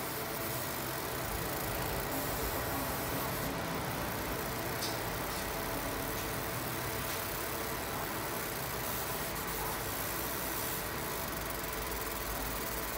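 30 W fiber laser marking machine running a marking job on a metal plate: a steady mechanical hum and hiss.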